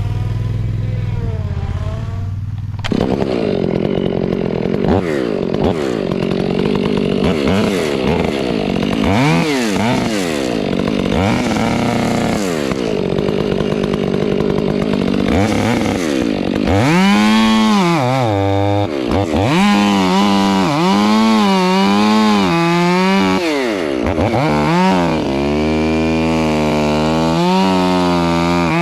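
Chainsaw starting up about three seconds in and running at high revs, its pitch rising and dropping again and again as it is worked through the wood. A lower, steady engine runs in the opening seconds.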